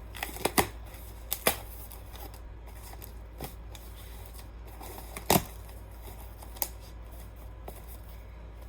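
Packaging being handled and opened by hand: a handful of scattered sharp clicks and snaps, the loudest about five seconds in.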